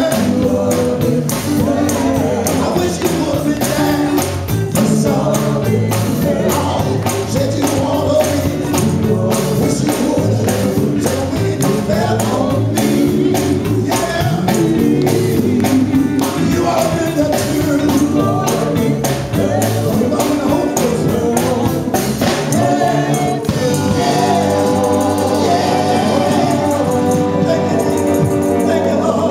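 Live gospel music: a male vocal group singing, a lead voice over backing harmonies, with a steady beat of percussion. About three-quarters of the way through the beat drops out and the voices hold long notes.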